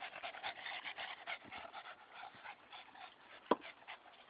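A dog panting in quick breaths, dying away after about two seconds, with one sharp knock about three and a half seconds in.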